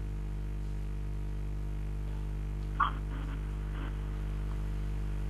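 Steady electrical mains hum with a stack of overtones, with a brief faint voice about three seconds in.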